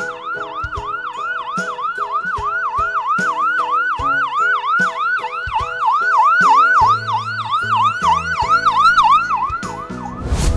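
Emergency vehicle siren in a fast yelp, its pitch sweeping up and down about three times a second, stopping near the end.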